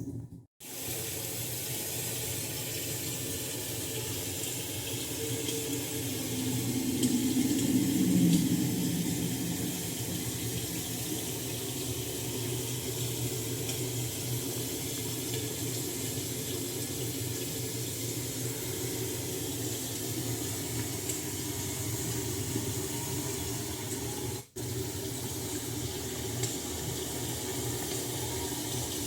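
Steady ambience sound effect of rushing water, with a louder low swell about seven to nine seconds in. It drops out for an instant near the start and again about 24 seconds in.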